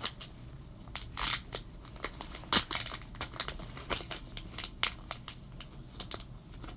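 Packaging of a pack of Mustad fishing hooks being handled and opened: crinkling and tearing with scattered sharp clicks and crackles. There is a rustle about a second in, and the loudest snap comes about halfway through.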